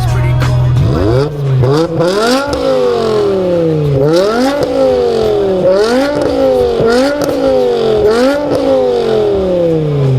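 BMW M6's V10 engine and exhaust being revved hard about six times in a row, each rev climbing quickly and falling back more slowly, with short cracks near the top of several revs.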